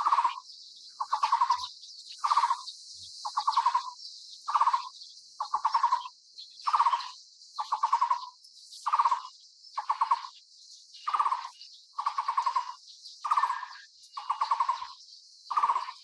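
Taiwan barbet calling: a rattled note made of a quick run of pulses, repeated about once a second, over a steady high hiss.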